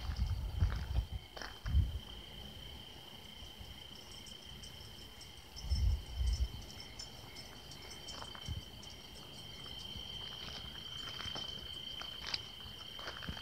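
Crickets chirring in a steady, continuous high-pitched trill, with a few low thumps near the start and about six seconds in.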